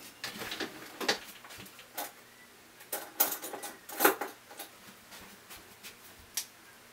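Irregular small clicks, taps and clinks of a screwdriver working at the control board inside an opened Brother PR620 embroidery machine, busiest about three to four seconds in.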